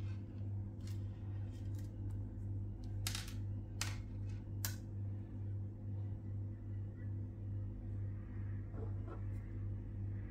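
A steady low hum that pulses evenly, with about five small sharp clicks in the first half, the loudest around three and four seconds in, from fishing tackle (line, snap swivel, lead sinker) being handled by hand.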